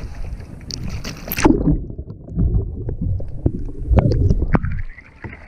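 Water splashing and sloshing around a kayak during a roll. About a second and a half in the sound suddenly goes muffled and dull, with knocks in the low rumble, then clears near the end.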